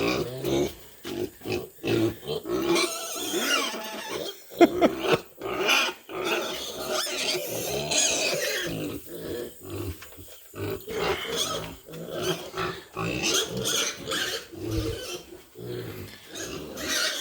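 Kunekune pigs grunting and calling in a dense, irregular string of short sounds, typical of pigs expecting to be fed.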